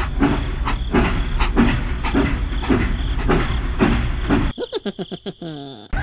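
Toy steam locomotive running on its plastic track, with a rhythmic chugging of about two chuffs a second. About four and a half seconds in, the chugging stops and a quieter warbling tone that slides in pitch takes over.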